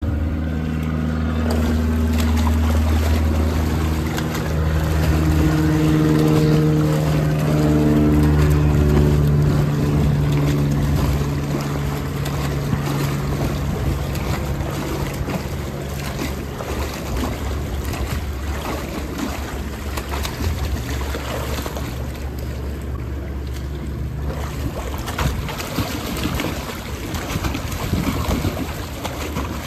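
Water splashing and churning as a swimmer swims freestyle, arms stroking and legs kicking. A steady low drone sits under the splashing for roughly the first half, then drops away.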